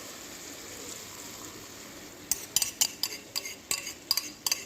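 A pan of beef and vegetables sizzling, then from about two seconds in a utensil clinking against the pan in quick, repeated knocks as the food is stirred.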